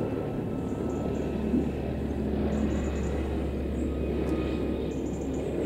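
Helicopter flying close by, its engine and rotors making a steady low drone.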